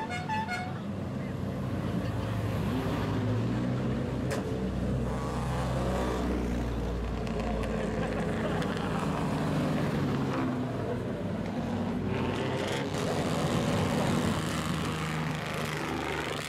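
Lowered Japanese custom cars driving slowly past one after another, their engines and loud exhausts running with several revs that rise and fall.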